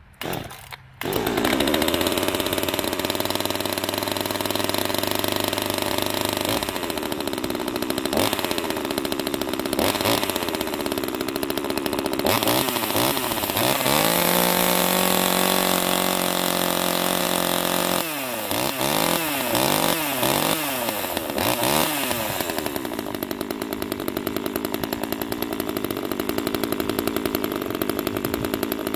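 New 25cc two-stroke top-handle chainsaw, a Chinese Stihl clone, catching on a pull about a second in at its first cold start after many pulls and running. It is held at high revs for several seconds in the middle, then revved up and down a few times in quick blips, then runs steadily.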